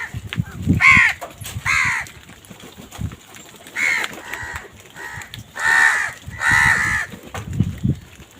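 Crows cawing: a series of about five or six harsh caws, some in close pairs, with a couple of low thumps near the end.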